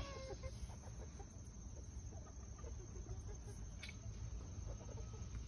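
A hen clucking faintly in short, low, scattered notes, over a steady low rumble, with one brief click about four seconds in.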